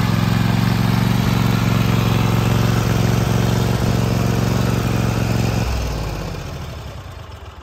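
Toro zero-turn riding mower's engine running steadily, then switched off about three-quarters of the way through and winding down to a stop.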